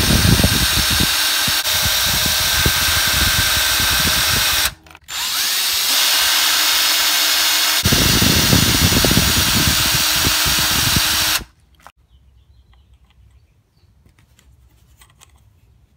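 Cordless drill/driver running to back out the screws that hold the shocks on a 1/10 scale RC truck: one steady run, a short stop a little before 5 seconds, then a second run that cuts off at about 11 seconds. After that only faint handling clicks.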